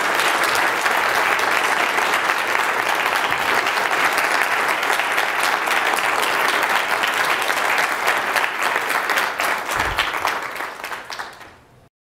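Audience applauding: a dense, steady patter of many people clapping that thins out and fades near the end, then cuts off abruptly.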